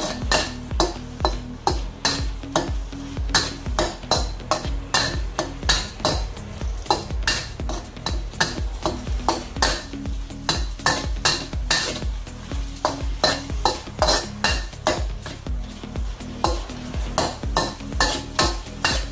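A utensil scraping and knocking against a pan in quick, even strokes, about two or three a second, as a chicken and holy basil stir-fry is stirred, with the food sizzling under it.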